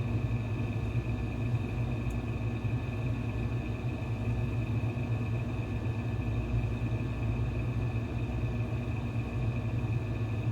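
Steady low hum with a faint high-pitched whine above it, unchanged throughout: constant room background noise.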